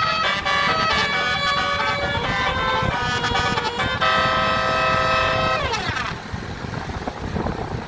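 Bus telolet musical air horn playing a quick tune of short stepped notes. About four seconds in it holds a long multi-note chord, which slides down in pitch and dies out, leaving only vehicle rumble.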